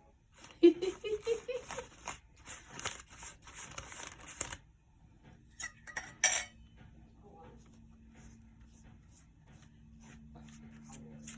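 Kitchen utensils clattering and scraping against dishes for about four and a half seconds, then a single sharp click. A faint, low, steady hum follows.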